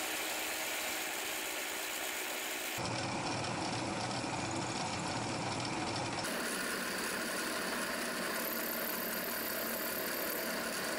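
Milling machine running, its end mill cutting a brass workpiece: a steady machine noise that changes abruptly twice, about 3 and 6 seconds in.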